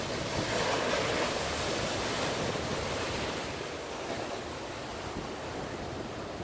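Sea surf: waves breaking and rushing in a continuous wash against rock boulders and up the beach. The surf is a little louder in the first couple of seconds, with wind buffeting the microphone.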